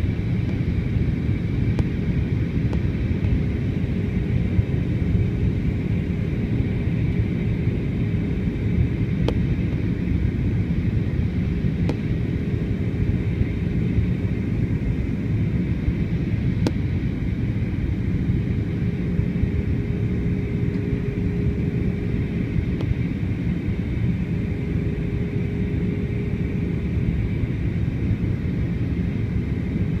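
Jet airliner cabin noise in flight: a steady low rumble of the engines and airflow, with a steady hum running through it.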